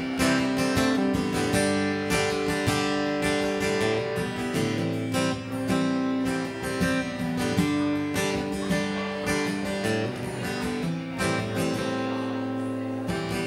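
Acoustic guitar strummed in a steady rhythm, full chords ringing, with no singing over it.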